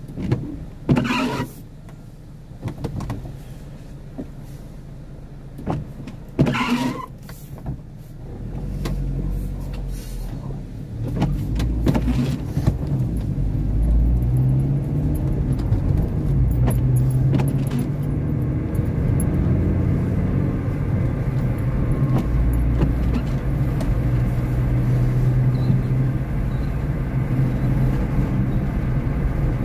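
Car engine and tyre noise, heard from inside the car as it pulls away, builds up and settles into a steady low drone while driving. Before it moves off there are two short, loud noises, about a second in and again about six seconds in.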